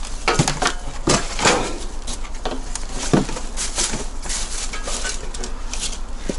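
Shovel digging and scraping into debris-strewn ground, with irregular knocks and scrapes as rubbish is pushed and pulled aside.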